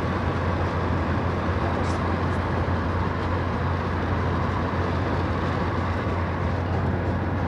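Steady road and engine noise inside a moving car's cabin, with a constant deep hum.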